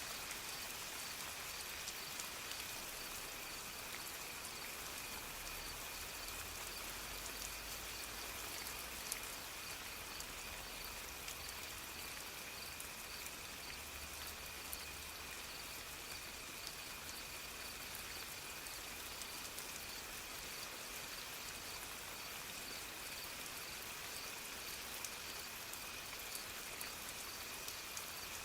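Soft steady rain falling, with scattered drop ticks. A faint steady high tone and a fainter pulsing one above it run under the rain.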